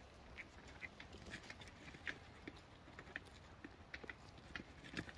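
Goat kids grazing close by: faint, irregular crisp ticks of grass being torn and chewed, a few each second.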